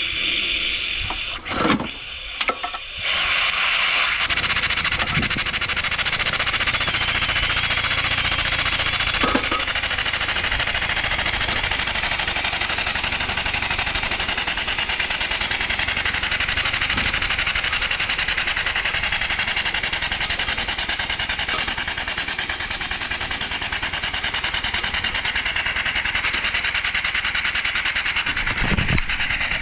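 Converted 150cc lawn mower engine running on steam from a coal-fired boiler, its exhaust steam hissing loudly and steadily. It starts with a few short bursts in the first three seconds, then settles into continuous running.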